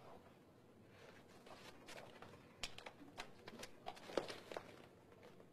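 Faint rustling with a run of soft clicks and taps through the middle, in a quiet room.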